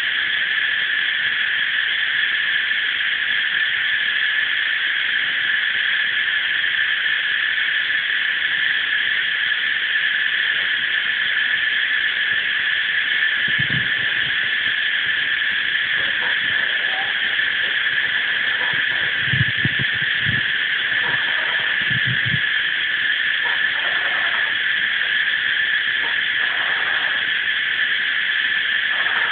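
A dense, steady chorus of cicadas at dusk, one unbroken high-pitched shrill with no rise or fall. A few short, low calls break through in the middle of it.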